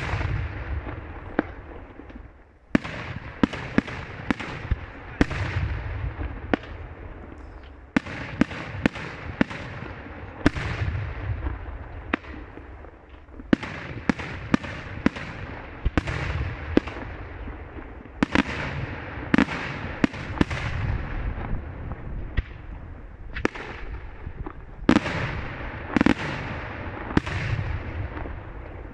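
Daylight fireworks display: aerial shells bursting in a dense series of sharp bangs, often several a second, each followed by a rolling echo. There is a brief lull about two seconds in.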